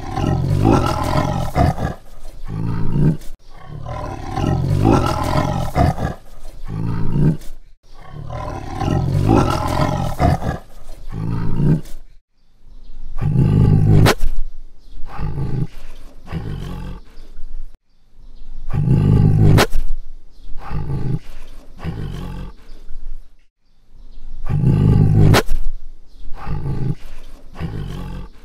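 Tiger roaring over and over: a run of long roars of a few seconds each, with short breaks between them.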